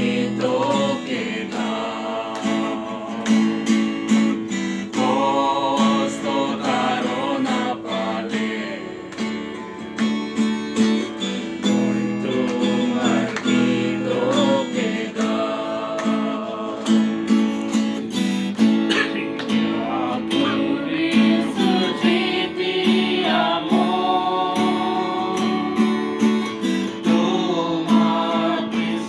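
Acoustic guitar strummed in steady chords, accompanying a man and several women singing a Christian worship song together.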